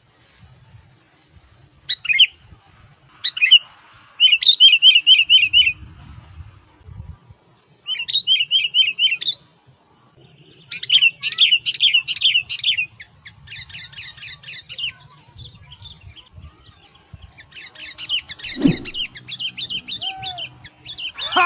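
Small songbirds singing rapid rolling trills in repeated bouts of one to two seconds, a decoy bird and a wild bird singing against each other.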